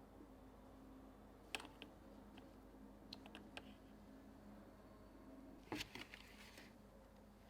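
Faint scattered clicks and light taps from a mechanical keyboard and its packaging being handled, with a sharper click about one and a half seconds in and a short cluster of clicks and knocks about six seconds in.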